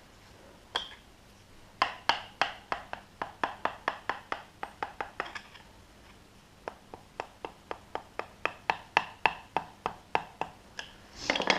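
Rapid metal-on-metal tapping, like a hammer striking a bolt or part on the motorcycle's rear end to free it. The strikes come about three a second in two runs with a short pause between them, and there is a louder noisy rush at the very end.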